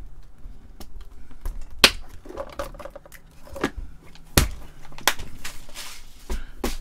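Sharp plastic clicks and knocks, about half a dozen spread over several seconds, with light rattling of small parts: a plastic compartment organizer of small screws being handled and put away on the workbench.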